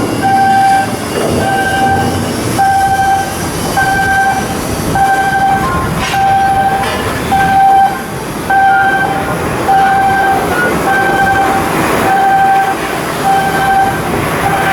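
An electronic warning beeper sounds one steady tone over and over, about three beeps every two seconds, over continuous shipyard machinery noise.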